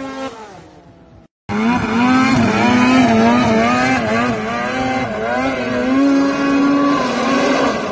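Snowmobile engine running at high revs, its pitch wavering up and down with the throttle. Near the start one engine sound fades and cuts off, and after a brief gap another sled engine comes in louder and stays high-pitched.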